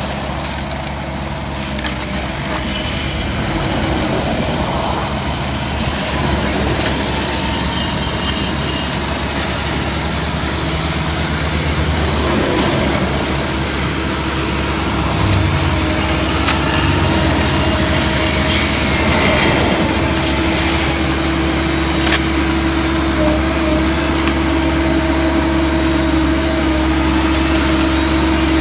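Multihog tool carrier's engine running steadily under load while its Mulag cable-barrier mower heads cut tall grass along the wire-rope barrier. A steady whine grows stronger about halfway through, with a few sharp ticks.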